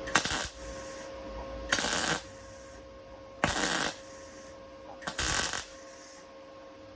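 MIG welder laying four short tack welds on thin car body steel, each a crackling burst of about half a second, spaced every second and a half or so, with a steady hum between them.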